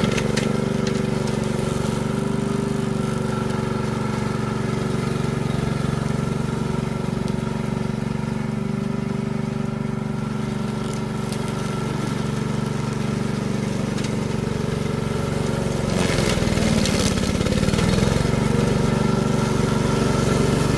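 Brush cutter running steadily. About 16 seconds in, the pitch wobbles and a rougher, louder noise sets in as the blade goes into the grass.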